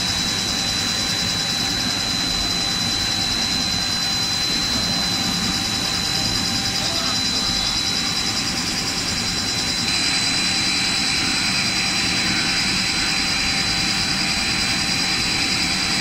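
Snack pellet extrusion machinery running steadily, with a constant high-pitched whine over a broad mechanical hum. About ten seconds in, the tone of the noise shifts as a further higher band joins.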